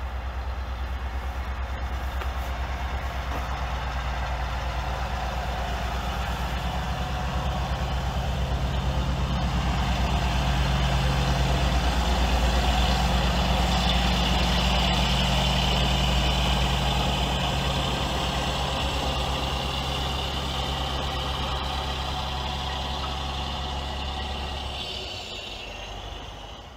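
Large truck's diesel engine running as the truck drives up, a steady low hum that grows louder about halfway through and then fades out near the end.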